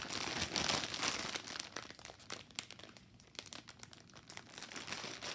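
Clear plastic bag packed with small bags of diamond-painting drills crinkling as it is handled and turned over. It starts suddenly and is loudest in the first second or two.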